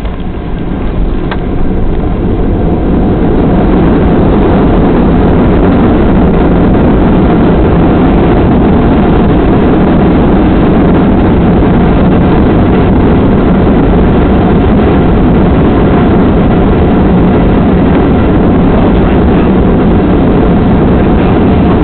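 Boeing 737 jet engines and rushing air heard from inside the passenger cabin as the plane lands and rolls out on the runway. A loud, steady rush builds over the first three seconds and then holds.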